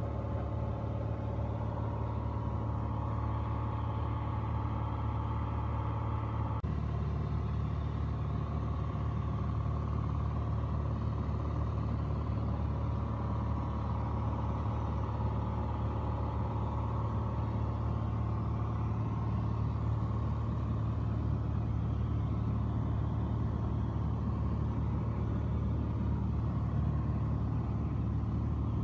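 Piper Dakota's six-cylinder Lycoming engine and propeller droning steadily at cruise, heard inside the cabin. The tone shifts abruptly about six and a half seconds in.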